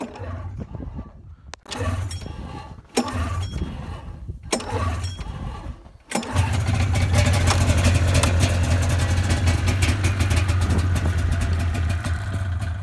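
A cold 1998 Polaris Indy Lite 340 snowmobile's two-stroke engine being pull-started: about four pulls of the recoil starter, each a short burst of the engine turning over, then about six seconds in it catches and runs steadily. Cold, it does not start on the first pull and takes a few pulls.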